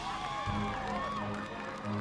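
Marching band music falling quiet after a loud passage, with audience whoops and cheers sliding up and down over it in the first second; the band then holds soft, low, sustained notes.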